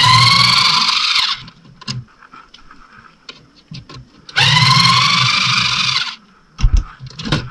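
Handheld power drill running in two short bursts of about a second and a half each, its whine rising in pitch as it spins up, as screws are driven out of the headlight housing. A couple of sharp knocks follow near the end.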